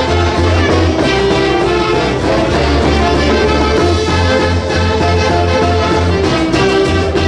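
Peruvian folkloric orchestra playing a Santiago tune live, with horns carrying the melody over a steady low bass beat.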